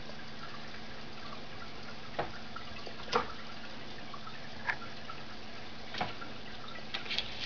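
Aquarium filter running: water trickling with a steady low hum beneath, and a handful of short sharp drips or ticks spaced irregularly through.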